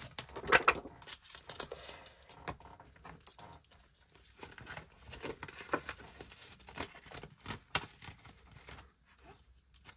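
Coins and paper being handled: a string of irregular small clinks and rustles.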